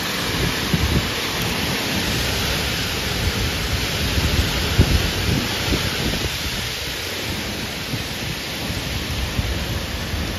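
Torrential rain pouring steadily in a thunderstorm, with irregular low thumps of wind gusting onto the microphone.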